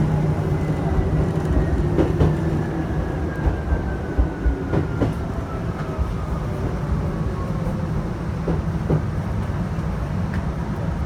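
Chichibu Railway electric train running, heard from the front of the train: wheels click over rail joints in pairs three times, over a steady low rumble, with a thin whine that falls steadily in pitch.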